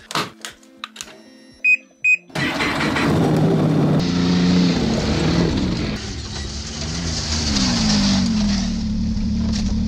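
Two short beeps, then a Lynx snowmobile engine starts suddenly about two and a half seconds in and keeps running, its pitch rising and falling as the throttle is worked.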